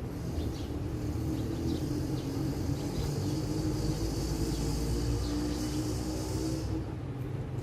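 A steady low rumble with a high hiss that stops near the end, and faint short bird chirps over it.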